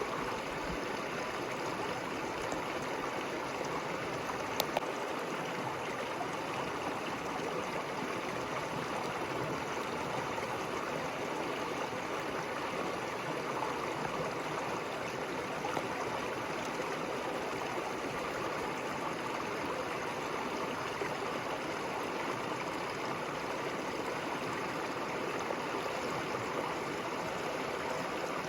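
River water flowing in a steady, even rush, with one brief click about five seconds in.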